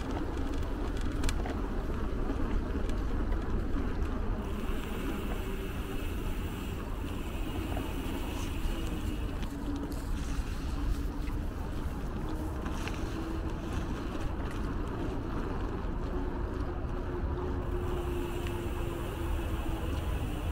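Wind buffeting the microphone of a camera riding on a moving bicycle: a steady low rumble with a faint tone that drifts slowly in pitch.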